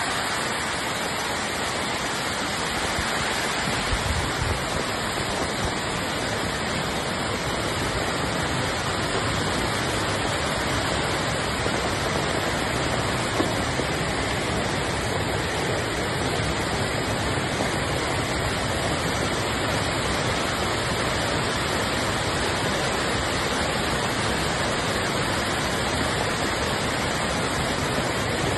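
Fast-flowing floodwater rushing steadily through a street, a continuous torrent of water noise.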